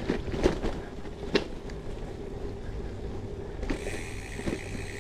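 Gravel bike riding along a forest track: a steady rolling and wind rumble on the microphone, with a few sharp knocks in the first second and a half. About three and a half seconds in, a steady high whir joins it.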